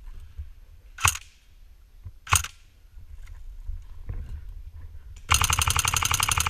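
Airsoft PPSh replica firing: two single shots about a second apart, then near the end a rapid full-auto burst lasting a little over a second.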